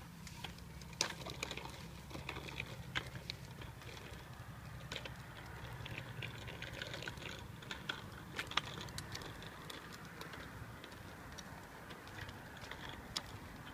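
A child's bicycle and footsteps on a concrete sidewalk: scattered light clicks and taps over a low steady rumble, which eases about eleven seconds in.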